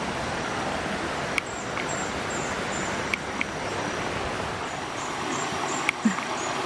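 Steady rushing of flowing stream water, with a few sharp clicks and faint high chirps over it.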